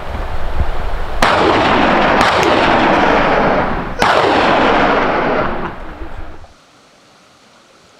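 Two gunshots about three seconds apart during a wild boar hunt, the first a little over a second in. Each is followed by a long rolling tail that fades away, and the sound dies out after about six and a half seconds.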